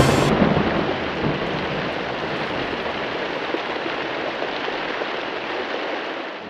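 Steady rain hiss, opening on the tail of a loud thunderclap whose low rumble dies away within the first second or so; the rain fades out near the end.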